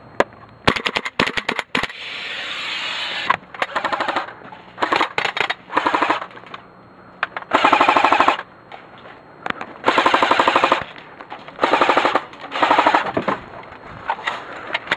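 Airsoft electric guns firing full-auto: about eight short bursts of rapid, evenly spaced plastic-BB shots, each lasting half a second to a second, with brief pauses between them.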